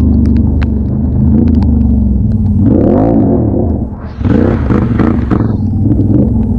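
Can-Am Outlander XT-P ATV's V-twin engine running under way, revving up and down a little before the middle, dropping off briefly as the throttle closes, then pulling again. A hiss of wet tyres on the rain-soaked road rises as it accelerates.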